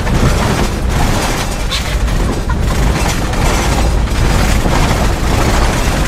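Van driving on a dirt road, heard from inside the cab: a loud, steady low rumble of engine, tyres and body.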